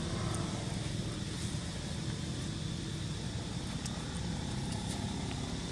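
Steady outdoor background rumble and hiss, with no distinct event.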